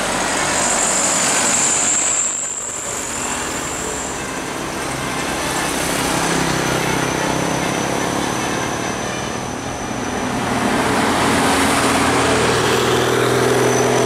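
Tour bus's diesel engine pulling up a winding incline and passing close by, mixed with the noise of passing cars. The engine sound dips briefly early on and grows louder again over the last few seconds as the next bus comes up.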